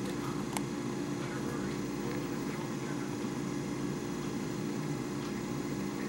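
Steady low background hum, with a single short click about half a second in.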